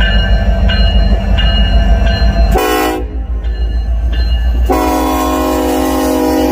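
Train rumbling with a regular clatter, then a diesel locomotive's air horn sounds a short blast about two and a half seconds in and a long held blast from about five seconds in.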